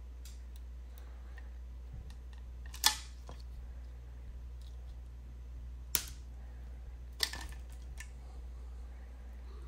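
Small hard parts clicking together as a steel rod with a spring is fitted through the servo arm of an RC motorcycle frame. Three sharp clicks come about 3, 6 and 7 seconds in, with a few fainter ticks between, over a steady low hum.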